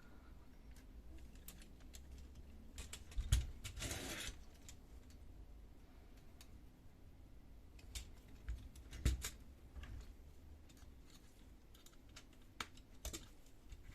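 Small clicks and knocks of parts being handled as the bushings on a Samsung Xpress laser printer fuser roller are rotated to free the roller. A sharper knock comes about three seconds in with a short scraping rub just after it, and another knock at about nine seconds.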